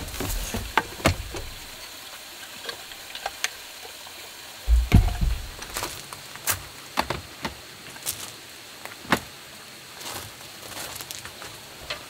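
Scattered clicks and knocks of things being handled, with one heavier low thump about five seconds in, over a faint steady hiss.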